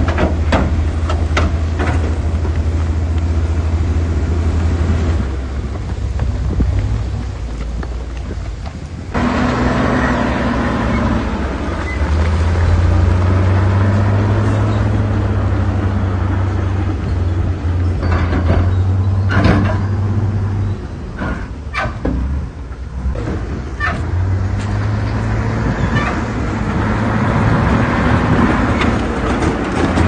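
Diesel engine of heavy earthmoving machinery running under varying load, its low drone rising and falling several times, with scattered sharp knocks and clanks.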